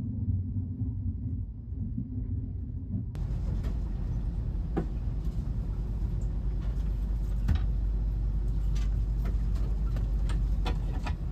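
Steady low rumble of a moving vehicle heard from inside, with scattered light clicks and taps. It is muffled for about the first three seconds, then clearer.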